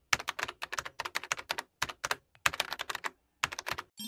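Computer keyboard typing sound effect: quick runs of key clicks in about six short bursts with brief pauses between them. A rising synth sweep starts right at the end.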